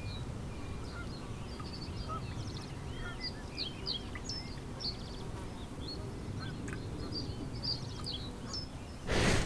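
Wetland bird chorus: many short high chirps, whistles and buzzy trills from small birds, over a steady low rumble. A short rush of noise comes near the end.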